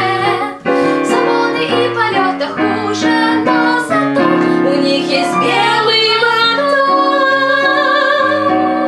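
A young woman singing a jazz-pop song to digital piano accompaniment. From about five seconds in she holds one long note over the piano chords.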